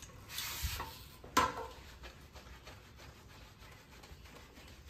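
Hands rubbing and massaging shampoo lather through wet hair, a faint scratchy rubbing. Early on there is a short hiss, and a sharp click about a second and a half in.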